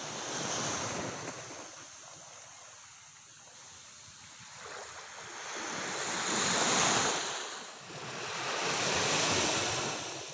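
Ocean surf breaking over rocks, a rushing wash that swells and falls back three times, loudest about two-thirds of the way through.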